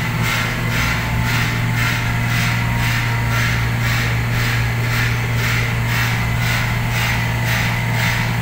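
A machine running steadily: a loud, constant low hum with an even swishing pulse about twice a second.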